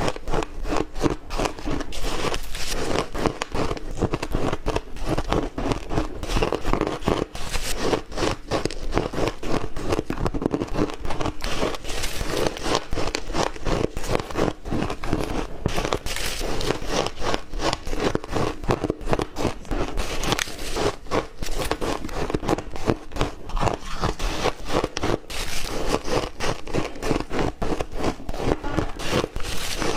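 Ice being bitten and chewed close to the microphone: a dense, continuous run of crunches and crackles.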